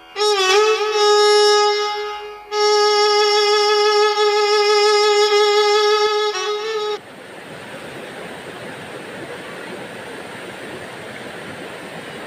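Intro music: a single held note, wavering at first, that breaks off briefly about two seconds in, resumes and stops abruptly about seven seconds in. After it comes the steady rush of a river flowing over rocks.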